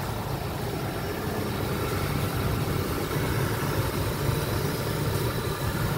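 Mitsubishi Space Gear van's engine idling steadily after its pulley was replaced, running smooth without shaking.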